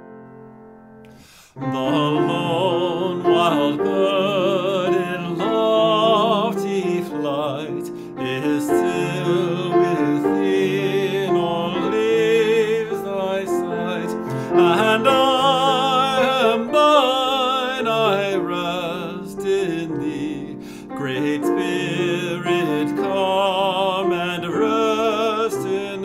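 Hymn sung with strong vibrato over piano accompaniment: soft piano alone at first, then the voice enters about a second and a half in and carries the melody of a verse.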